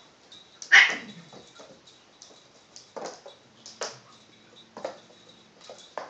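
Sphynx cat and kitten at play on a hard floor: a short, loud cry about a second in, then a few sharp knocks and light scuffles.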